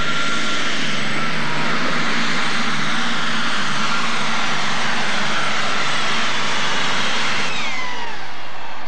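Super stock pulling tractor's engine running flat out under load as it drags the weight sled, loud and dense with a steady high whine. About seven and a half seconds in it winds down at the end of the pull, the whine falling in pitch.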